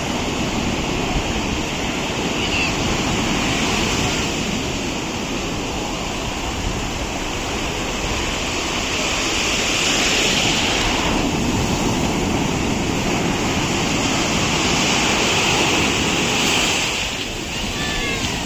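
Sea surf breaking on the shore, a continuous rush of waves that swells louder and eases off, loudest about ten and fifteen seconds in.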